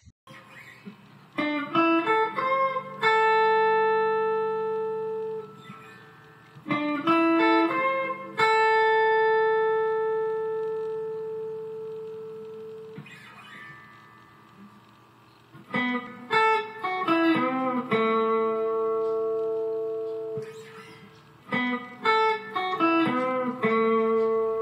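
Electric guitar playing two short pentatonic licks in A, with a brief pause between them. The first is in A minor pentatonic and the second in A major pentatonic, both with string bends and long held notes.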